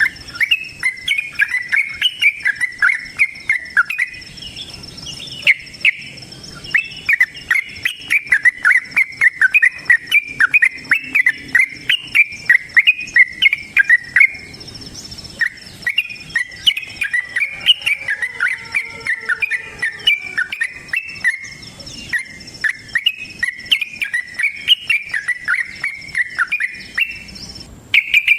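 Yellow-vented bulbul singing in long, fast runs of bubbling, chattering notes, broken by a few short pauses. A thin, steady insect trill runs high underneath.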